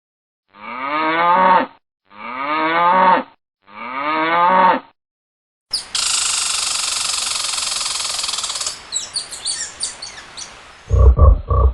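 A cow mooing three times in quick succession, each moo about a second long. A loud, high-pitched hissing sound follows for several seconds and breaks into chirps, and near the end a rapid run of low grunts begins.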